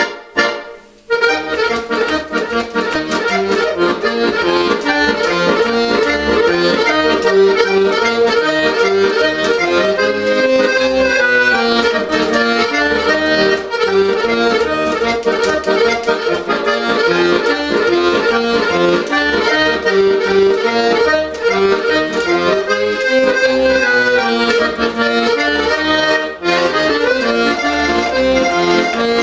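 Piano accordion playing a solo instrumental tune: a melody over a regular bass accompaniment. A short opening sound and a brief break come first, and the tune runs on from about a second in.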